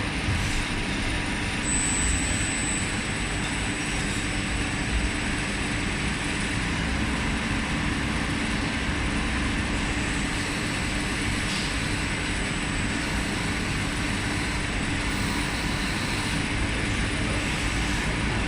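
DMG CTX 310 CNC lathe running steadily while turning a brass bushing, with a thin high whine over the machine noise.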